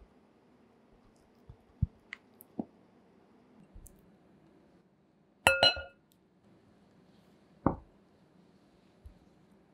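Pieces of butter dropped one by one into a glass mixing bowl of flour: a few soft thuds, and about halfway a sharp clink with a short glassy ring, the loudest sound, followed by one more thud.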